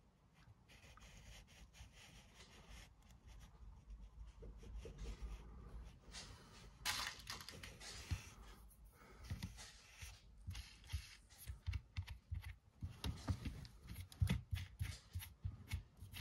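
Faint handling noises of small parts being worked at a bench: a rustle about seven seconds in, then a run of light taps and knocks that grows busier toward the end.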